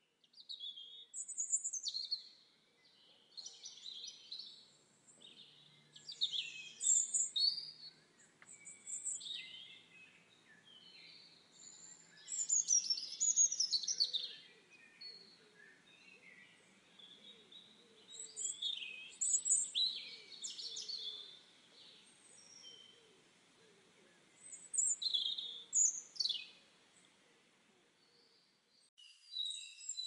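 Small garden songbirds calling and singing: repeated bursts of high chirps, twitters and short trills, some overlapping, separated by brief pauses.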